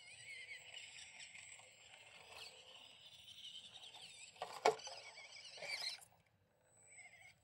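Axial SCX24 Gladiator micro crawler's small brushed electric motor and gears whining as it crawls over rock, the pitch wavering with the throttle. A sharp knock about four and a half seconds in, and the whine stops abruptly about six seconds in.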